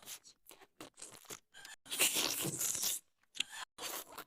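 Irregular crunching, crackling noises in short bursts, denser and louder for about a second in the middle.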